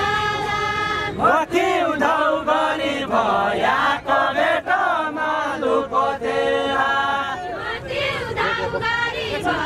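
A group of men singing a Far-Western Nepali deuda folk song together in unison, unaccompanied, with long held notes between shorter sung phrases.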